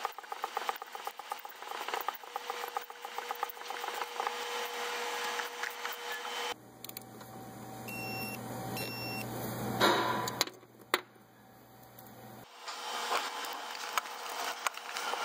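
Quarter-inch hand ratchet with a long extension clicking rapidly as it turns a loosened spark plug. In the middle the clicking gives way to a low hum with a couple of sharp knocks, then the ratcheting resumes near the end.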